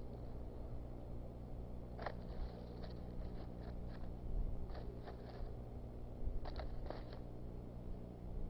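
Bald eagle working nest material in a snowy nest bowl: several short bouts of crackling and crunching of sticks, grass and snow, over a steady low hum.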